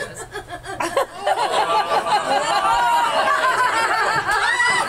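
An audience laughing together, starting lightly and swelling to full, sustained laughter about a second in.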